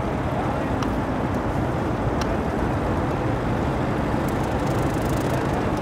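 Steady low rumble of outdoor background noise, with two faint clicks about one and two seconds in.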